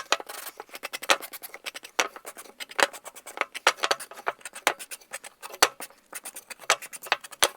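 Cut wooden shutter pieces knocking and clicking against each other as they are handled and sorted, many quick, irregular clicks.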